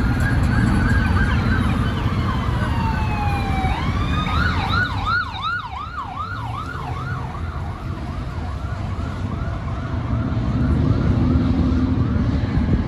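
Emergency vehicle siren sounding over steady freeway traffic rumble. It starts with a slow rising-and-falling wail, then about four seconds in switches to a fast yelp of about three to four cycles a second that fades away.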